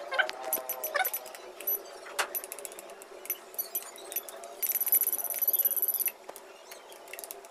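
Plastic clicks of an RC transmitter's buttons and switches being pressed. About two-thirds of the way in comes a rapid, high-pitched electronic beeping for about a second and a half from the WLtoys V333 quadcopter's transmitter.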